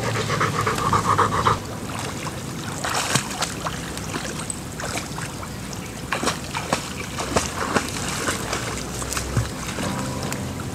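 Lake water splashing as a man wades waist-deep beside a swimming black Labrador, with irregular splashes throughout.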